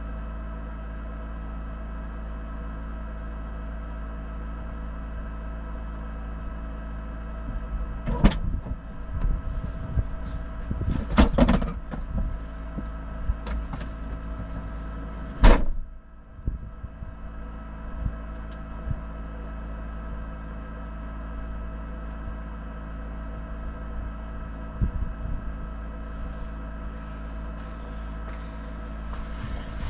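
A 4x4's engine idling steadily, with several sharp clunks and knocks over it, a cluster about eleven seconds in and the loudest about fifteen seconds in.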